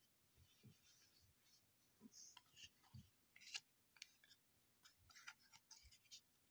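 Faint rustling, soft scrapes and small clicks of baseball trading cards and a pack wrapper being handled.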